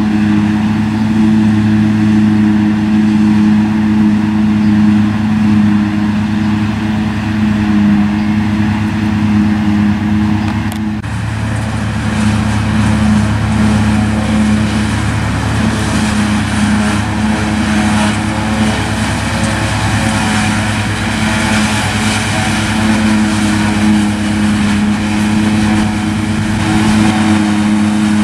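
Fortschritt E 281C self-propelled forage harvester and a Massey Ferguson tractor at work harvesting grass for silage: steady diesel engine running under load, with the harvester's chopper and blower. About eleven seconds in the sound changes abruptly and becomes more hissy.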